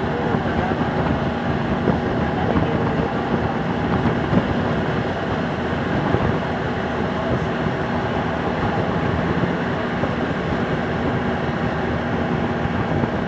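Steady engine and road noise heard from inside a moving vehicle's cabin: a constant rumble with a faint low hum and no sharp events.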